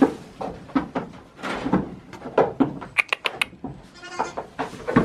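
Wooden knocks, thumps and rattles of a wire-mesh goat-pen door being handled and opened, with a quick cluster of sharp clicks about three seconds in.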